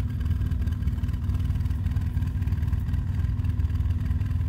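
A vehicle engine running steadily, low-pitched and unchanging, with no revving up or down.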